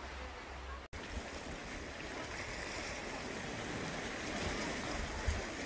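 Sea waves washing over rocks at the shore, with wind rumbling on the microphone. The sound drops out briefly about a second in at an edit, then goes on steadily.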